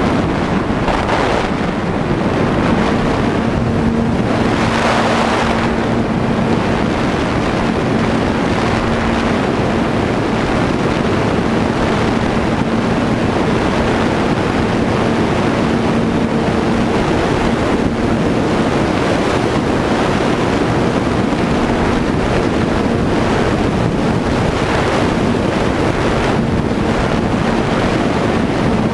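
Wind rushing over the onboard camera's microphone of a fixed-wing FPV model plane in flight, with the steady hum of its electric motor and propeller fading in and out.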